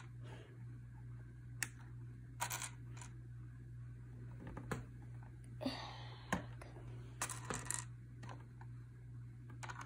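LEGO battle droid minifigures and their plastic parts clicking and tapping as they are pulled off and set down on a baseplate: a string of irregular light clicks with a short rustle of handling about six seconds in.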